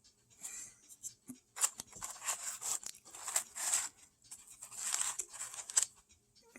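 Rustling and scraping of small objects being handled, in about five irregular bursts over several seconds.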